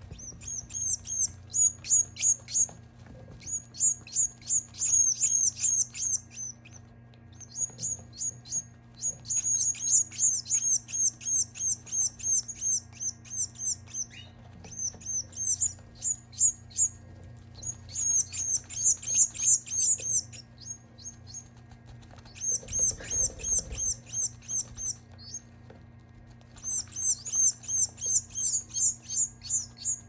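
Baby birds begging while being syringe-fed: rapid, high-pitched chirps, about five a second, in bursts of a few seconds with short pauses between them, over a steady low hum.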